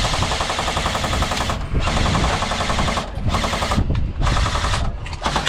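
Airsoft gun firing on full auto in three long bursts with short pauses between them.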